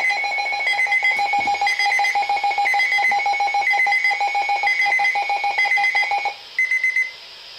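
Electronic emergency alert attention tones: a rapidly pulsing mid-pitched beep, with a higher short beep repeating about once a second. The pulsing beep stops a little over six seconds in, leaving only the higher beeps.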